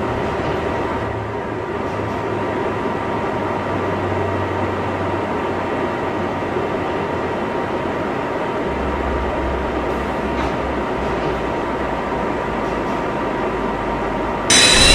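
Steady hum and rushing noise inside an R142A subway car, with a faint high tone held throughout; the low hum shifts in pitch a little past halfway.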